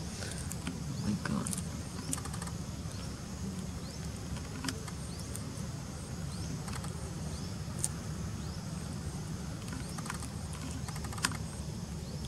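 Outdoor ambience: a steady high insect drone over a low rumble, with scattered sharp clicks and ticks every second or so.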